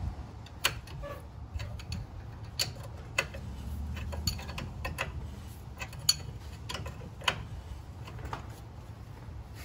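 Scattered metallic clicks and ticks, roughly one every half second to second, from hand tools working a coil spring compressor fitted on a Jeep's rear coil spring, over a steady low hum.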